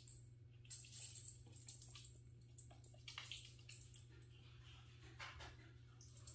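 Small puppy moving about on a hardwood floor while tugging and flipping a fabric dog bed: scattered light clicks and rustles, clustered about a second in, over a steady low hum.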